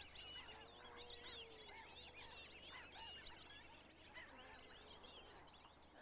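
Faint chorus of many birds calling: a dense stream of short chirps, with one drawn-out lower note about half a second in that lasts about a second.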